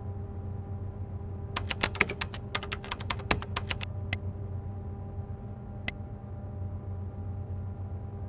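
Typing on a computer keyboard: a quick run of key clicks lasting about two seconds, then two single clicks, over a steady low hum.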